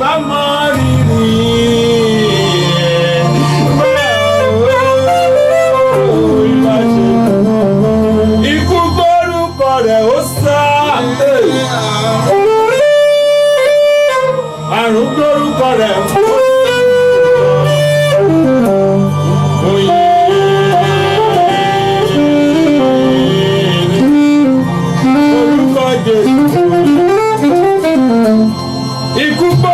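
Instrumental music: a gliding, bending melodic lead line over a steady bass.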